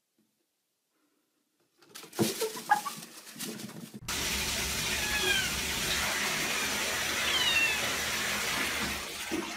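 A cat meowing several times, short high cries that fall in pitch, over a steady hiss. Before that come a few knocks and brief sounds.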